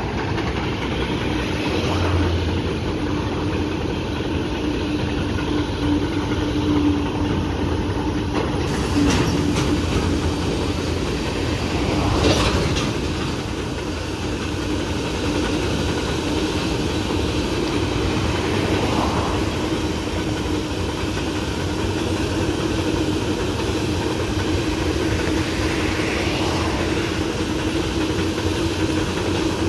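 A long freight train of hopper wagons rolling past behind an electric locomotive: a steady rumble of steel wheels on rail, with a few sharp knocks about nine and twelve seconds in.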